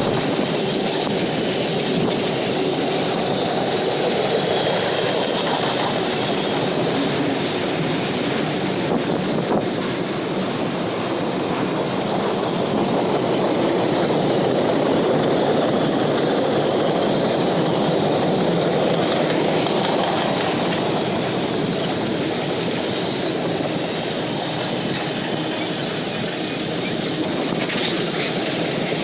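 Freight train cars rolling past close by: a steady, continuous noise of steel wheels on rails, even in level throughout.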